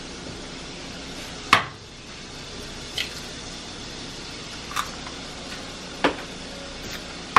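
Eggs being tapped and cracked against the rim of a plastic mixing bowl: four sharp clicks spaced a second or more apart, the first the loudest.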